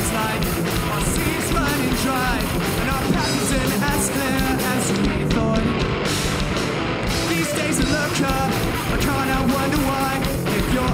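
Live rock band playing a song at full volume: drum kit with crashing cymbals, electric guitars and bass guitar.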